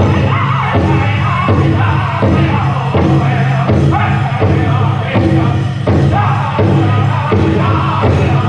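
Powwow drum group singing a men's chicken dance song. High-pitched voices sing over the big powwow drum, which is struck in a steady, even beat.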